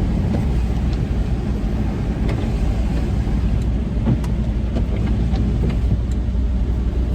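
Steady low road and engine rumble inside a van's cabin while it drives at a steady pace, with scattered light ticks over it.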